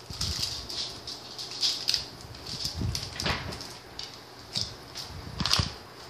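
Plastic snack wrappers crinkling and rustling as they are handled, in repeated short bursts, with louder rustles about three and five and a half seconds in.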